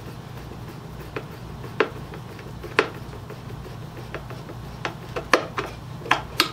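Hand screwdriver driving a waxed brass screw down into a pallet-wood board, giving about ten irregular sharp clicks and creaks, closer together in the second half.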